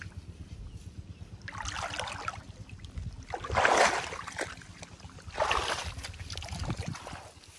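Canal water splashing and sloshing in three surges, the loudest about three and a half seconds in, over a steady low rumble.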